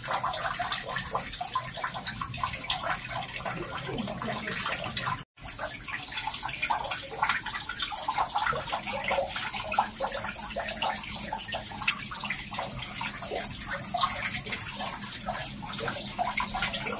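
Water dripping and trickling into a pool inside a limestone cave: a dense, continuous patter of many small drops and splashes. The sound cuts out for a moment about five seconds in.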